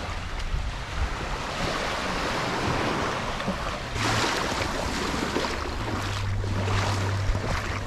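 Surf washing onto a beach, with wind on the microphone. A boat engine's low steady hum comes in about six seconds in.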